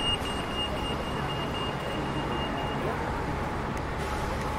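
City street traffic running steadily, with a rapid high electronic beeping, about four beeps a second, that fades out about halfway through.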